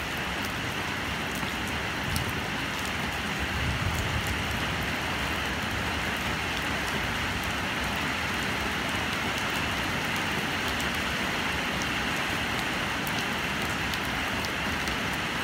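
Steady rain falling: an even hiss with scattered small ticks of drops.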